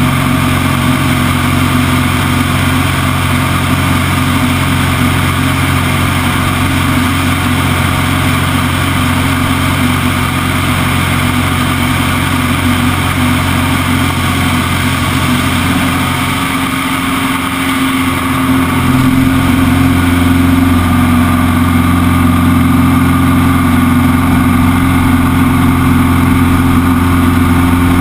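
Extra 200 aerobatic monoplane's four-cylinder Lycoming engine and propeller running steadily, heard from inside the cockpit. The engine sound dips briefly about two-thirds of the way through, then comes back louder from about 19 seconds on.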